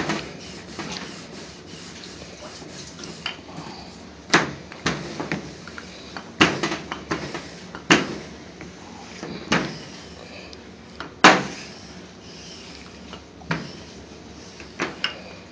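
Wooden rolling pin rolling out paratha dough on a metal worktop: a soft rolling rub with sharp knocks every second or two as the pin strikes the metal surface.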